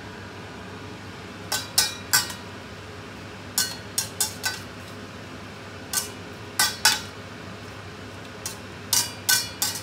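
Metal spatula and spoon clanking and scraping against a stainless steel wok while stir-frying cabbage and mushrooms: about a dozen irregular sharp clanks with a short metallic ring, coming in small clusters.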